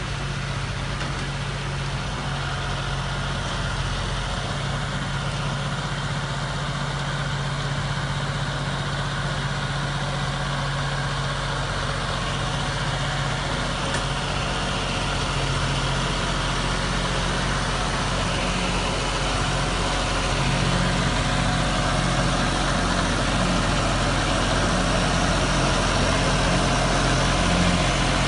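Tractor diesel engine running steadily under load while driving a rotavator that churns through stony soil; it grows a little louder near the end as the tractor comes close.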